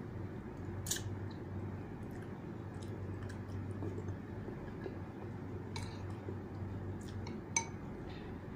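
Metal spoon and fork clinking against a ceramic bowl while eating noodles: a few sharp, scattered clinks, the loudest near the end, with soft chewing in between over a steady low hum.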